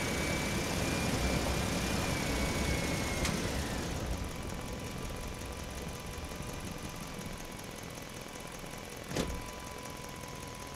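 Truck engine running as it drives through a parking structure, with a thin high whine over the first three seconds that ends in a click; the engine then runs quieter, and a single sharp knock comes about nine seconds in.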